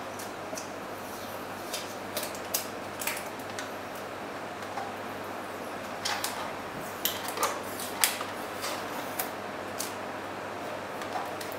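Scattered clicks and taps from a plastic external dual hard-drive enclosure being handled and turned over in the hands, with fingers picking at tape on its front cover. The sharpest click comes about eight seconds in.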